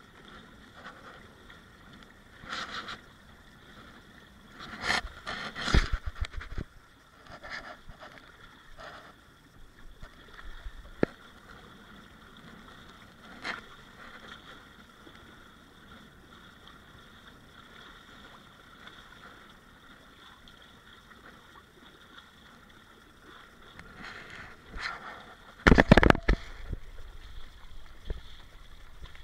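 Water rushing and splashing against the hulls of a small inflatable Minicat Guppy catamaran under sail in choppy water, a steady hiss broken by sudden loud splashes of waves and spray. A cluster of splashes comes around five to six seconds in, and the loudest run of slaps comes near the end.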